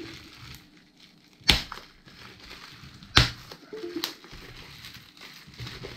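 A ballpoint pen jabbing and scraping at a bubble-wrapped plastic package to tear it open: plastic crinkling, with two sharp pops about a second and a half apart.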